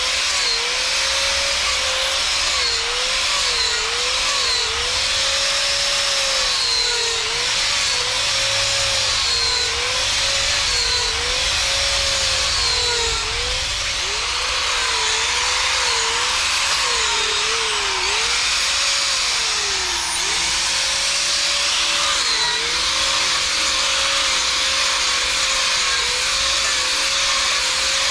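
DeWalt die grinder driving a Manpa chisel-cutter attachment, carving into red cedar: a steady motor whine that sags in pitch again and again as the cutter bites and then picks back up, over the hiss and chatter of wood being cut away.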